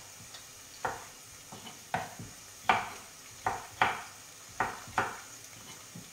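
Kitchen knife cutting tomatoes on a wooden chopping board: a run of about seven sharp knocks, irregularly spaced, one every half second to a second.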